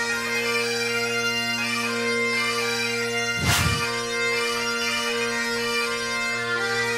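Bagpipe music: steady drones held under a melody, with a short rushing noise about halfway through.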